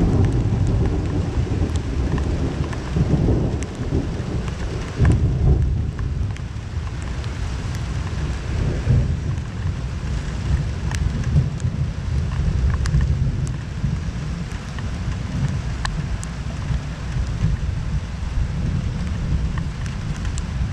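Steady rain during a thunderstorm, with a deep rumble of thunder that swells and eases several times, and scattered sharp taps of raindrops landing close by.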